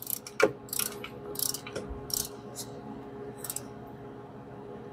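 Ratcheting torque wrench clicking in about five short strokes as an intake manifold bolt is run down and torqued.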